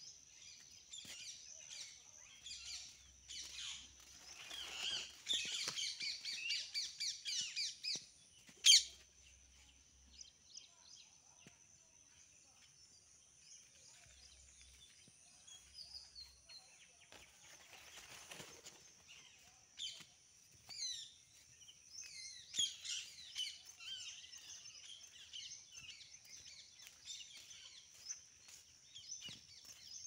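Small birds chirping and singing in rapid high trills, busiest several seconds in and again after about twenty seconds, over a thin, steady high-pitched tone. A single sharp click about nine seconds in is the loudest sound, and a brief rustle comes a little past the middle.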